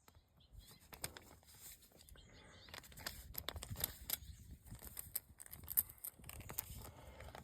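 Faint, irregular clicks and scraping from a screwdriver turning a screw-in rubber plug into a tire puncture, getting busier about three seconds in.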